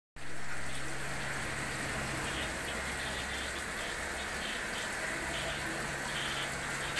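Water steadily splashing and trickling as it circulates through saltwater aquarium tanks, over a low steady hum from the pumps.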